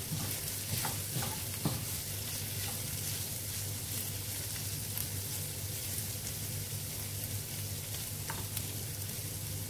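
Minced beef and onion sizzling in a non-stick frying pan while a wooden spoon stirs and scrapes through it, with sharp knocks of the spoon in the first couple of seconds. A steady low hum runs underneath.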